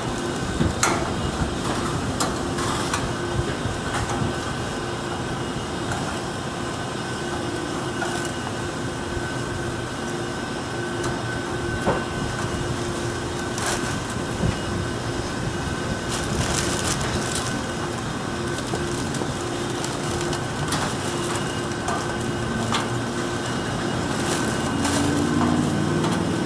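Shelves being set back into an outdoor cabinet: scattered clicks and knocks over a steady mechanical hum with two faint steady tones.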